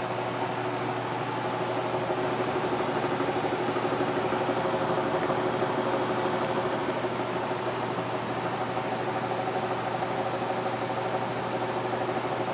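Amana furnace running with a steady, rapid rattle over a constant hum; the cause of the rattle is unknown.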